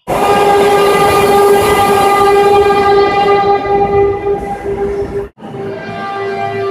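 Seoul Subway Line 2 train horn sounding one long, steady blast that cuts off about five seconds in. A second, quieter horn blast follows straight after.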